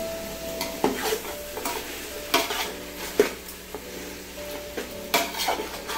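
A spatula stirring chicken and green chillies in an aluminium pot: irregular scrapes and knocks against the pot, the sharpest about a second in, twice between two and three-and-a-half seconds, and again just past five seconds. The masala sizzles under the strokes.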